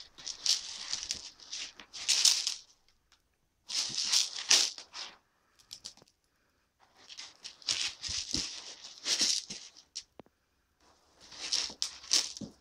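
Fresh granular cat litter rattling and shifting as a cat rolls and wriggles in it in a plastic litter box, in four bursts of a second or few each with short pauses between.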